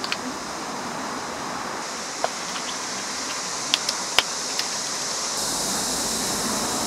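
A few sharp, irregular knocks of a knife striking a cutting board, over a steady background noise.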